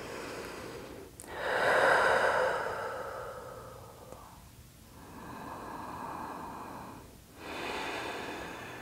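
A woman's slow, deep yoga breaths, heard as long airy swells: the loudest starts about a second in and fades, followed by two softer breaths.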